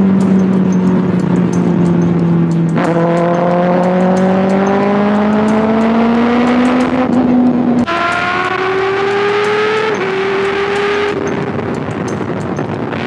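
Kawasaki ZX6R 636cc inline-four engine cruising steadily, then the throttle opens about three seconds in and the engine note climbs. Its pitch drops suddenly twice, near eight and ten seconds in, as it shifts up under acceleration. The throttle closes just after eleven seconds and the note settles lower and steadier.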